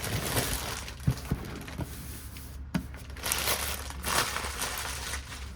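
Tape and packaging being peeled off and crumpled by hand: irregular crinkling and tearing with a few sharp clicks.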